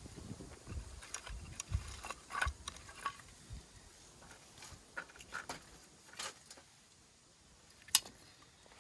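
Scattered small clicks, taps and knocks, with one sharp click about eight seconds in.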